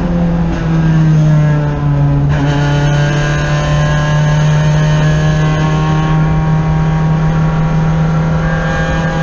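Race car engine heard from inside the cockpit, under load on track. Its note falls over the first two seconds as the car slows for a bend, shifts abruptly a little after two seconds in, then holds a near-steady pitch through the corner.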